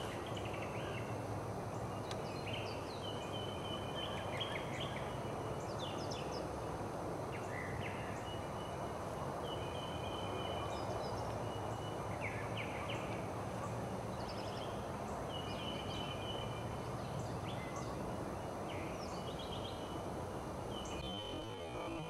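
Steady outdoor background noise with a bird calling over it in short, high chirps and trills, repeated every second or two.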